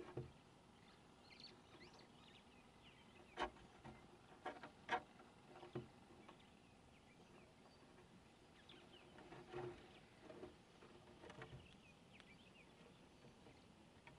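Scattered sharp clicks and knocks of a squirrel cracking and gnawing nuts and corn on a wooden board, in groups of a few at a time. Faint high bird chirps and trills sound now and then over a quiet background.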